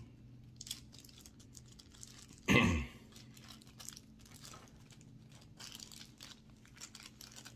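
Small clear plastic parts bag crinkling and rustling as fingers work it open to get out an axle pin, with one brief louder sound about two and a half seconds in.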